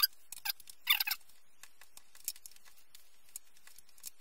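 A 4 mm Allen key working the tilt-tension screw on an Ergotron LX monitor arm's tilt pivot: a run of small clicks and scrapes, busiest at the start and about a second in, then scattered faint ticks.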